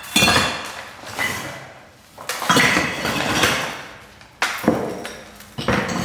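Broken concrete and terracotta rubble clattering and clinking in four separate bursts, each starting with a sharp hit and dying away over a second or so.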